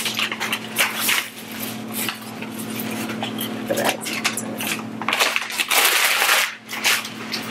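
Paper takeout bags and a plastic bag rustling and crinkling as they are handled and opened, in irregular bursts with the loudest crinkle about six seconds in. A faint steady hum lies underneath.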